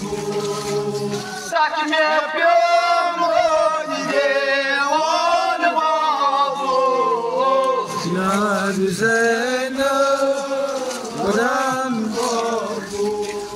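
A man chanting a noha, a Muharram mourning lament, in long, gliding melodic lines. The chant grows louder about a second and a half in.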